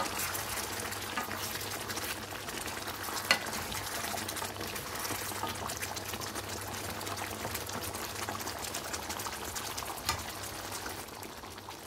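Chicken and tomato karahi curry sizzling and spitting in oil in a deep pan on high heat, a dense steady crackle, with one sharp tap about three seconds in.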